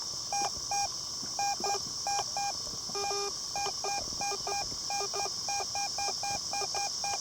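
Garrett AT Pro metal detector sounding short beeps as it is swept back and forth over a buried target. The beeps come in quick irregular pairs and runs, mostly at one higher tone with some lower tones mixed in, the signal of a coin-sized target. A steady high hiss runs underneath.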